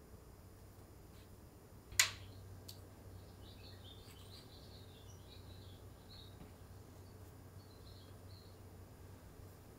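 A single sharp tap about two seconds in and a fainter one just after, then faint, scattered high chirps over a low room hum.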